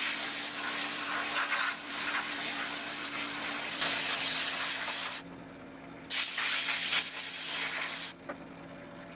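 Abrasive blasting gun in a blast cabinet, a loud steady hiss of air and grit stripping the old paint off small sewing machine parts. The hiss stops for about a second just past the middle, starts again and cuts off near the end. A low steady hum runs beneath it.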